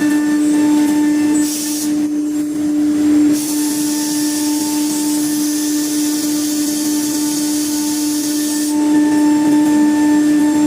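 CNC router spindle running at a steady high whine while its bit cuts plywood, with a rushing hiss of cutting that drops away for about a second near the start and then returns.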